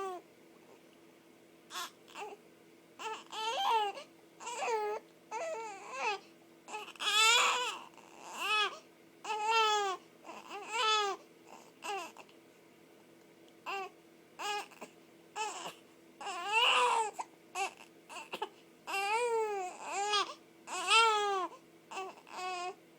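A pet with the hiccups making a long string of short, wavering, whining calls, one after another with brief pauses between them.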